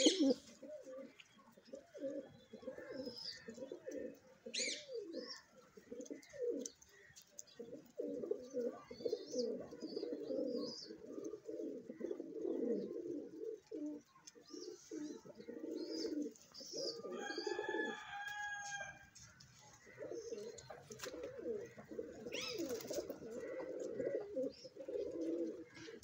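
A flock of domestic pigeons cooing, many low overlapping coos, with faint high chirps above. About 17 seconds in, the cooing drops away for a moment while a brief, higher, clear-toned call sounds.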